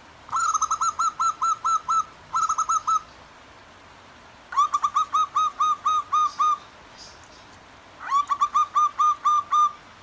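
Zebra doves (perkutut) calling in three quick phrases of rapid, evenly repeated cooing notes, about five or six a second, with pauses of a second or two between them. A faint steady wash of flowing stream water lies underneath.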